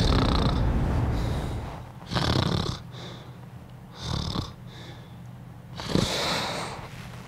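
Music fades out over the first second and a half. Then a man snores three times, each snore about two seconds after the last.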